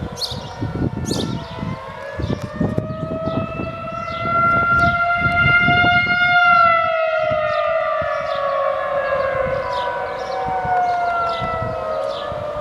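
Civil defence air-raid siren sounding in a test: a wailing tone that rises slowly to a peak about six seconds in, then falls away again.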